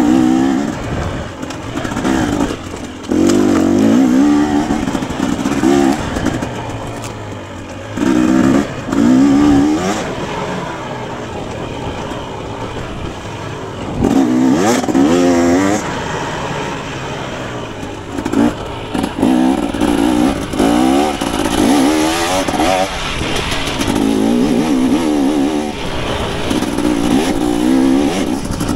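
KTM 250 XC two-stroke dirt bike engine revving up and down again and again as the throttle is opened and shut. It runs in loud bursts of acceleration, about a second or two each, with quieter stretches of lower revs between.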